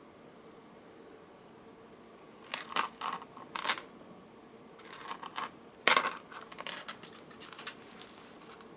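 Small beads clicking and clattering as they are picked up and threaded onto a necklace: a scatter of sharp little clicks, the loudest about six seconds in.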